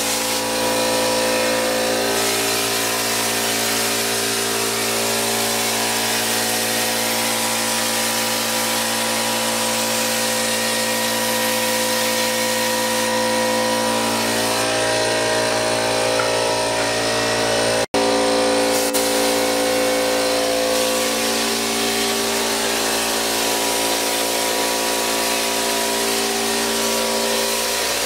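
Texture hopper gun spraying thinned texture mud onto a ceiling, a steady hiss of compressed air over the constant hum of the air compressor's motor. The sound cuts out for an instant about two-thirds of the way through, then carries on unchanged.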